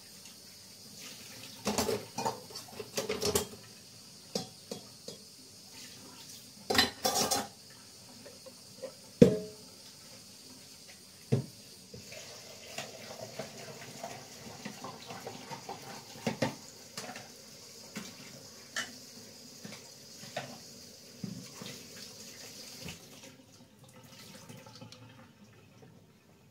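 Kitchen utensils clattering: a metal ladle and a plastic measuring jug being picked up and set down, with several sharp knocks and clinks and many lighter ones over a steady hiss that fades near the end.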